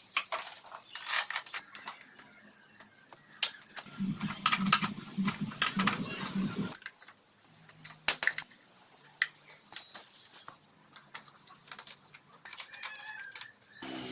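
Irregular sharp clicks and knocks, with a low, pulsing hum for a few seconds in the middle.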